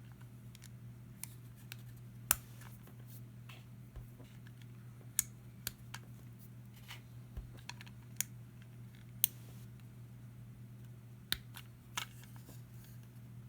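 Small plastic Lego pieces being handled and pressed together: scattered sharp clicks, a dozen or so at irregular intervals, over a steady low hum.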